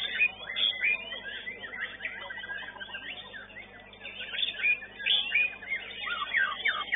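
White-rumped shama (murai batu) singing a fast, varied run of whistles, chirps and sliding notes, with other contest songbirds singing over it.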